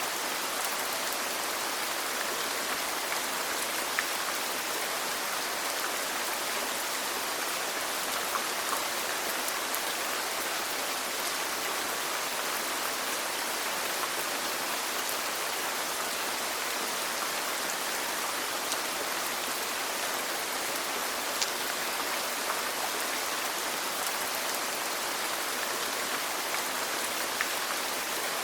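Steady rain falling in an even hiss, with scattered individual drops ticking on a surface.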